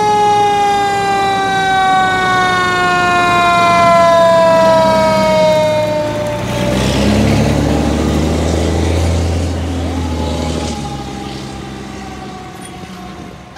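Fire truck siren sounding loud and falling slowly and steadily in pitch for about six seconds as the aerial ladder truck passes. Then the truck's engine rumbles low for a few seconds, while a fainter siren tone keeps falling toward the end.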